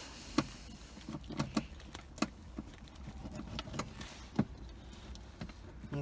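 Scattered faint clicks and light taps, about a dozen spread irregularly, from hands and a tool working on a car's centre console trim, over a faint steady low hum.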